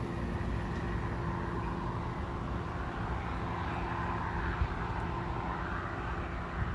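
NJ Transit diesel push-pull train moving away after passing: steady rumble of wheels on the rails and a drone from the PL42AC diesel locomotive at the far end.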